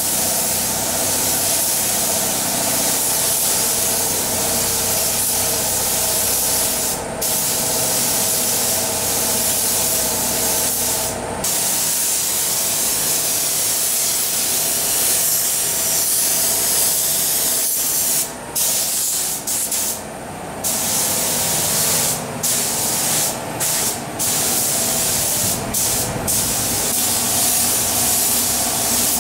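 Compressed-air gravity-feed spray gun hissing as it sprays paint onto car bodywork. The hiss breaks off briefly several times where the trigger is released between passes, more often in the second half.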